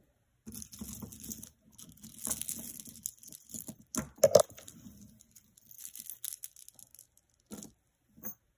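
A beaded necklace and its metal chain being handled, with beads and chain links clinking and rustling against other jewelry and the cloth as the necklace is pulled from a pile and spread out. There are a few sharp clacks, loudest just after four seconds in.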